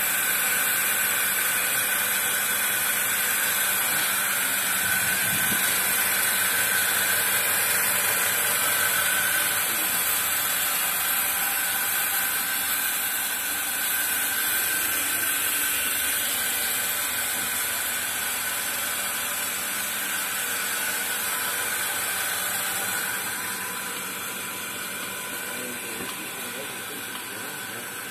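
Pipeline milking machine running: a steady hiss of air drawn through the vacuum line, with a faint hum under it, easing a little near the end.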